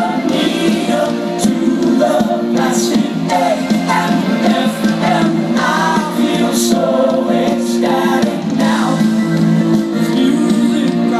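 Live pop-rock concert music: a band playing with sung vocals over a steady bass line.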